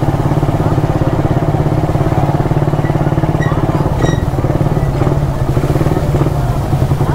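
Motorcycle engine running at low, steady revs while rolling slowly, its exhaust pulsing evenly and fast.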